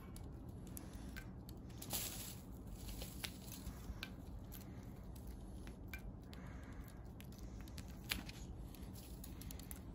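Faint scuffs and scattered light taps of a cat playing with a feather teaser toy on a rod over dry dirt, the feather and the cat's paws hitting the ground, the sharpest taps about two and eight seconds in, over a low steady background hiss.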